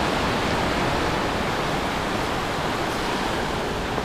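Ocean surf washing onto a beach: a steady rush of breaking waves.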